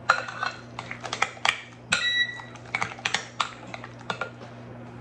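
A spoon clinking and scraping against a glass mixing bowl while stirring a thick cheese sauce: irregular clicks, one about two seconds in ringing briefly.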